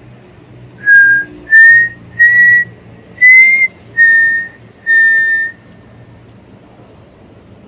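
A series of six short, clear whistled notes, each held on one pitch: the pitch rises a little over the first four notes and falls back over the last two.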